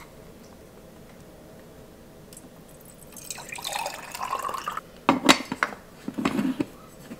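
Water poured from a filter pitcher into the bottom chamber of a stovetop moka pot, lasting about a second and a half, followed by several sharp metal clinks and knocks as the pot is handled and put together.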